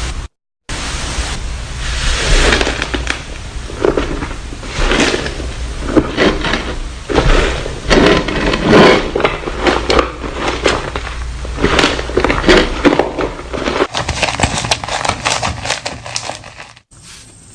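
Slime being squished and worked, with dense wet crackling and popping that swells and fades in waves. It cuts off shortly before the end.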